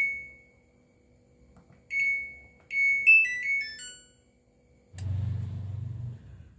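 Beeper on a Samsung front-load washing machine's control board: two single high electronic beeps, then about three seconds in a quick tune of several short notes at different pitches, as the board loses power. A low buzz follows for about a second near the end.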